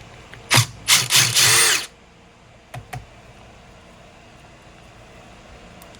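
Small power drill-driver spinning in three short bursts, about half a second to two seconds in, the last one speeding up and slowing down, as it backs out the 3 mm hex Allen bolts that hold the chainsaw's oiler. Two light clicks follow about three seconds in.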